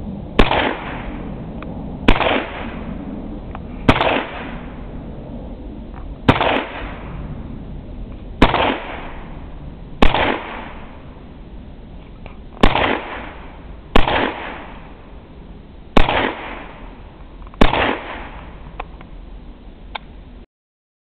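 US M1 carbine firing ten semi-automatic shots of .30 Carbine, spaced about one and a half to two and a half seconds apart, each shot followed by a short echo.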